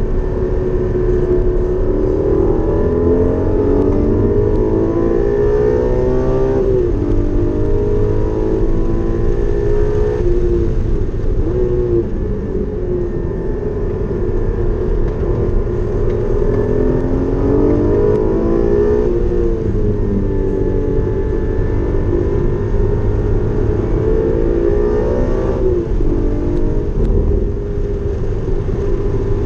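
Porsche Cayman GT4's flat-six engine at full throttle on a race track. The revs climb and then drop sharply several times as it shifts gears, with steady low road and tyre rumble underneath.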